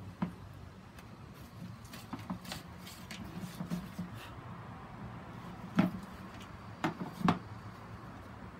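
Plastic grid mounting board being handled and shifted on a plastic box: scattered light clicks and rattles, then three louder knocks in the second half.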